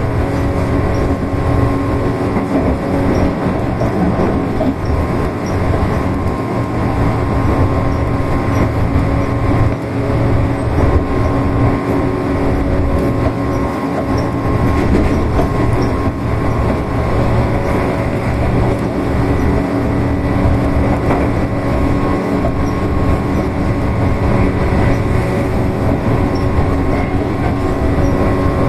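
Tobu 8000 series electric train running steadily, with a constant hum from its motors and gears over a heavy rumble and occasional clatter of the wheels on the rails.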